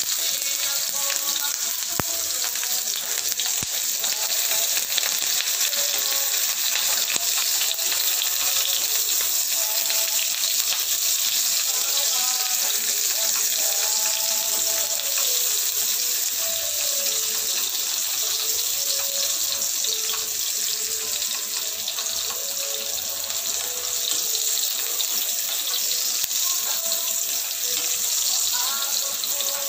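Sliced onions frying in oil in a small wok, a steady sizzling hiss, stirred now and then with wooden chopsticks.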